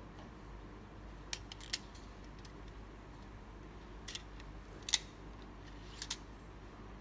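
Plastic clicks of a disposable biopsy gun being cocked: the trigger part is pulled back to load the needle and the mode switch is moved. There are several sharp clicks spread through the stretch, with the loudest about five seconds in and a quick pair about a second later.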